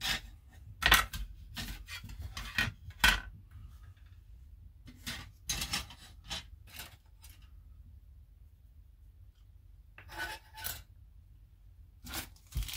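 Hard plastic model-kit parts being handled on a cutting mat: scattered taps and scrapes as pieces are picked up, slid and set down. They come in clusters, with a quiet spell in the middle.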